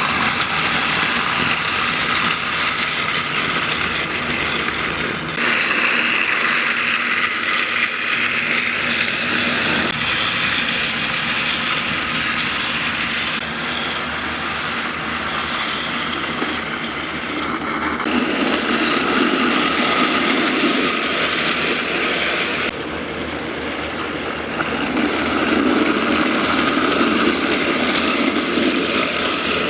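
Battery-powered Trackmaster toy trains running on plastic track: a steady motor whir with wheel and gear clatter. It changes abruptly in character several times.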